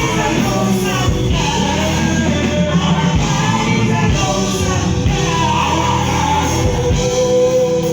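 Loud amplified music with a singing voice over it, going on steadily.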